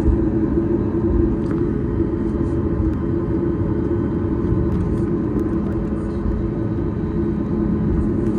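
Boeing 737-8 MAX cabin noise: a steady low rumble and drone from its CFM LEAP-1B engines, holding an even pitch throughout.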